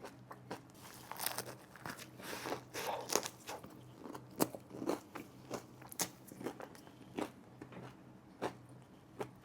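Close-up chewing of a crispy fried chicken slider: a spell of dense crunching in the first few seconds, then a steady run of single crunchy chews.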